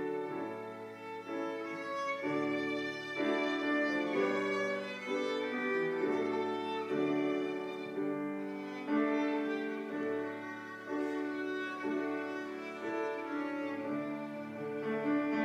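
Instrumental interlude of a slow ballad: a violin plays a slow, held melody over a soft accompaniment, with no singing.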